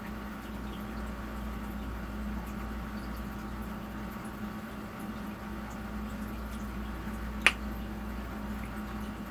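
Wet chewing and mouth sounds of someone eating a soft scrambled-egg, rice and sausage dish, over a steady low hum. A single sharp click stands out about seven and a half seconds in.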